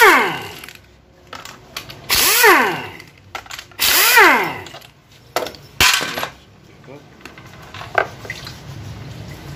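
Pneumatic ratchet running in short bursts, backing out the 10 mm bolts of an automatic transmission oil filter. There are three main whirs, each rising then falling in pitch, and a brief fourth one. A light click follows near the end as the filter is lifted off.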